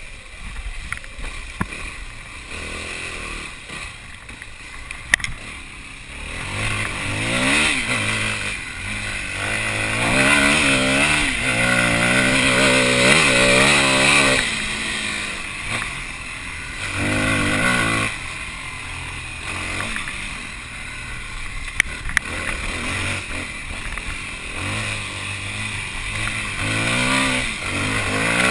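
Yamaha WR250 dirt bike engine being ridden hard off-road, revving up and down through the throttle. It is loudest through the middle, eases off in quieter stretches near the start and about two-thirds through, and a few sharp knocks cut in.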